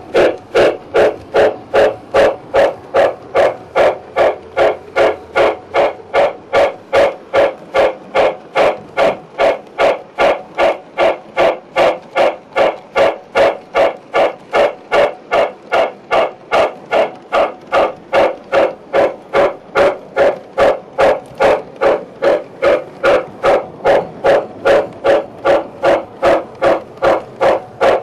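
O gauge model train running along the track, with a steady, even beat of about two pulses a second.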